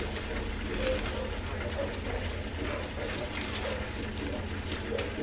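Pan of onions and green peppers bubbling in liquid while pieces of fried rabbit are pushed off a wire fry basket into it with a spatula, with a few light clicks.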